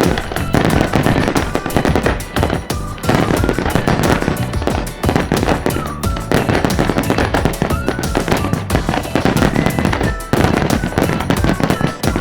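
Fireworks display: a dense run of bangs and crackling explosions, with music playing alongside.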